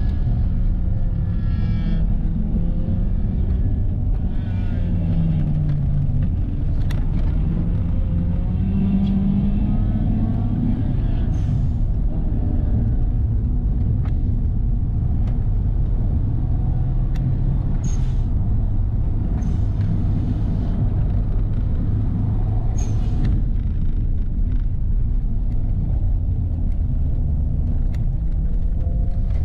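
Subaru Legacy's 2.0-litre turbocharged flat-four engine heard from inside the cabin under hard track driving, its pitch falling and rising with throttle and gear changes, over steady road and tyre noise. A few brief sharp noises cut in now and then.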